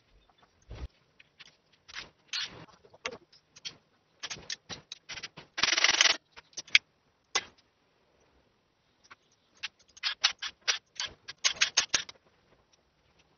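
Hand tools and metal engine parts being handled: irregular clinks, taps and scrapes, with a harsher rasping scrape about six seconds in and a cluster of quick clicks near the end.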